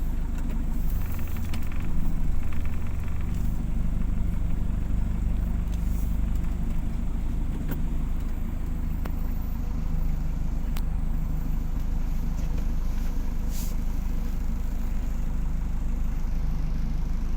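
Motor vehicle on the move: a steady low engine drone with road noise and a few faint clicks.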